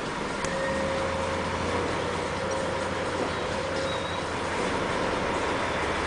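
Crane truck's diesel engine running as the truck creeps forward, heard from inside the cab. A deeper engine drone comes in under a second in and holds steady.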